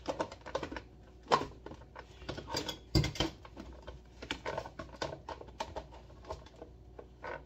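Irregular clicks, taps and knocks from things being handled on a kitchen counter while coffee is being set up, with a louder knock about three seconds in.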